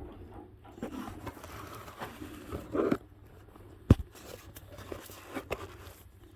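Handling noises from work on the engine: rustling and scraping, a short burst of rustle just before the middle, then one sharp knock, the loudest sound, and a smaller knock shortly after.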